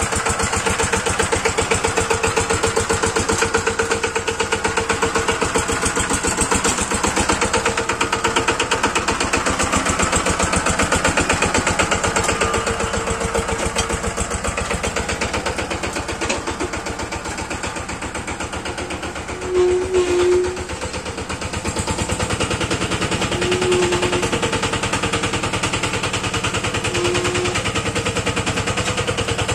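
Yanmar walking tractor's single-cylinder diesel engine running with a rapid, even chugging beat. A few short higher tones sound over it in the second half.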